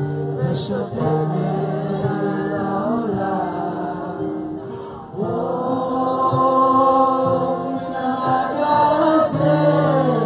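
A large group singing a melody together to guitar accompaniment, over steady low notes. About halfway through the singing dips for a moment, then comes back fuller and louder.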